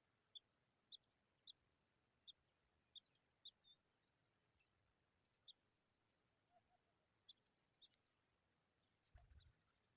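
Faint, short high chirps from a small bird, repeated about twice a second at first and then more scattered. A soft low bump comes near the end.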